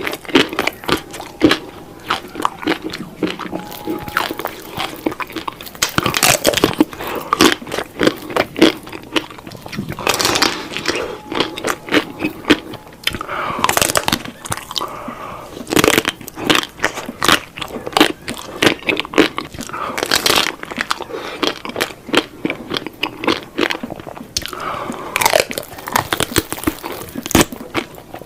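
A person biting and chewing crunchy food, with many sharp, irregular crunches.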